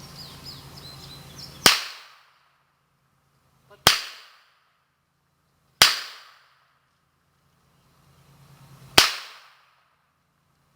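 Four shots from a Belgian Bulldog revolver in .442 Webley firing black-powder cartridges, each a sharp crack with a short decaying tail. The shots come about two seconds apart, with a longer gap before the fourth.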